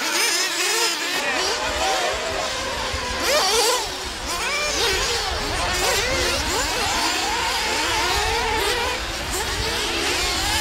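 Several 1/8-scale nitro RC buggies racing, their small two-stroke glow engines screaming and overlapping, pitch rising and falling as they rev through the corners and jumps. The loudest pass comes just after three seconds in.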